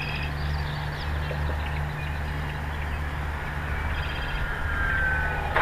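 Motor of a radio-controlled float plane on its landing approach with flaps down, faint and distant; its whine falls gently in pitch near the end as the throttle is brought back for the flare. A steady low hum runs underneath.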